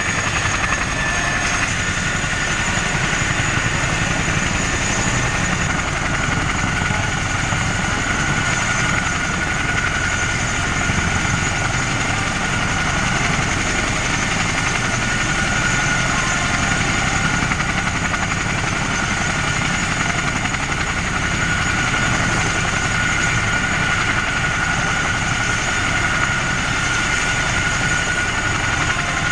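CH-47J Chinook helicopter's turbine running steadily on the ground, a low hum under a high, even whine.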